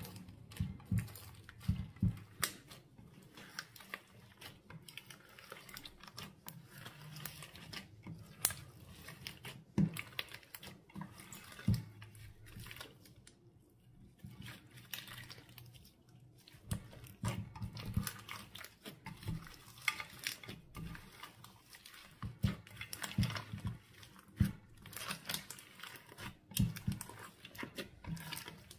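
Clear slime being worked and squished by hand, giving irregular wet clicks and pops.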